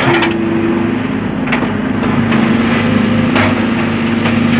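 Heavy machine's engine running steadily, with a few sharp knocks or clanks about one to two seconds apart.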